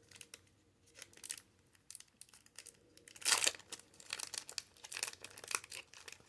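Pokémon Celebrations booster pack's foil wrapper crinkling in the hand. About three seconds in it is torn open in one loud rip, followed by dense crinkling.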